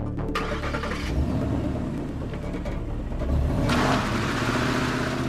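Ford Mustang's engine starting, then running and revving louder as the car pulls away, with a rising rush of noise from about two-thirds of the way in.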